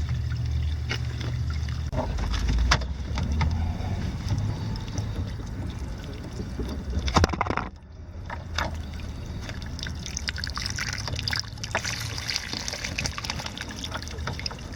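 Water trickling and sloshing over a low steady hum, with scattered clicks and knocks throughout.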